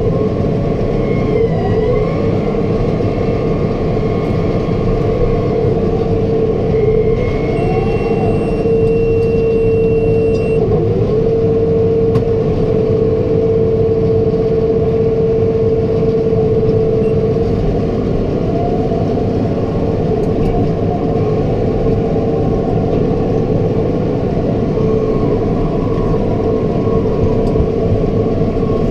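A tractor engine running steadily while pulling a New Holland round baler through hay, with a steady whine over the drone of the machinery.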